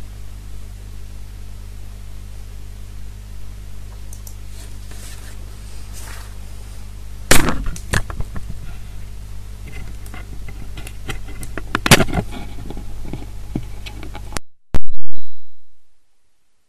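Steady low electrical hum and hiss on the recording's sound feed, with scattered clicks and knocks, two of them loud about 7 and 12 seconds in. The signal cuts off about 14 seconds in, followed by a loud low thump.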